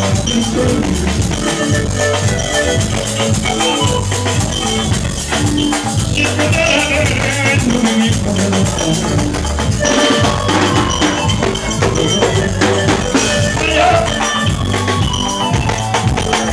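Live band music: electronic keyboards over a pulsing bass and drum beat, with shaker-like percussion, playing a dance song without letup.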